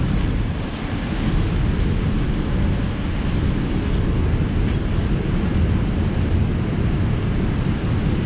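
Wind buffeting the microphone: a loud, steady rushing rumble, heaviest in the low end, with no distinct events.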